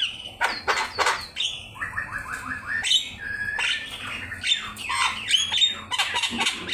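Javan myna (jalak kebo) in full song: a varied string of harsh squawks and falling whistled notes, with a quick run of about six short repeated notes about two seconds in.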